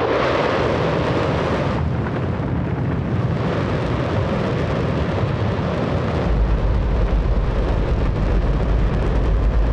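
Space Shuttle rocket engine, burning hydrogen and oxygen, test-firing on its stand: a very loud, continuous noise that starts suddenly, with a deep rumble growing stronger about six seconds in.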